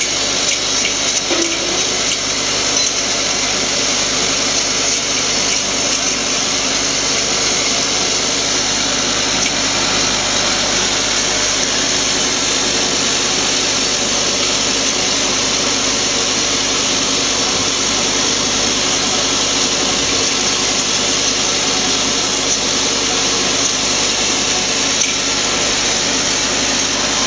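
Vibratory bowl feeder running, its stainless steel bowl full of pencil clips that rattle steadily as they are shaken round the bowl and out along the feed tracks.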